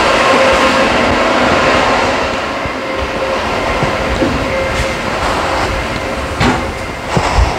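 Steady whir of a shop ventilation fan with a faint hum, easing off about three seconds in. A few sharp knocks and thumps follow near the end.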